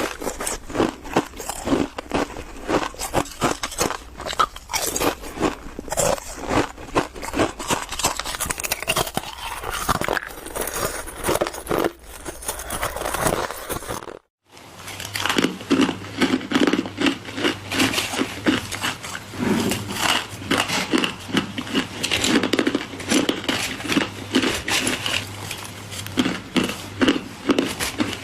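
Solid ice being bitten and chewed, a dense run of irregular crunches and cracks. It breaks off briefly about halfway through, then goes on over a low steady hum.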